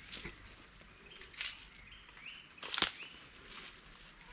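Forest ambience with faint, repeated bird chirps, broken twice by short sharp crunches, footsteps or brush on dry leaf litter, the second louder.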